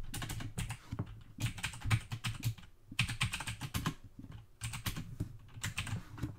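Typing on a computer keyboard: a run of quick, irregular key clicks broken by two short pauses.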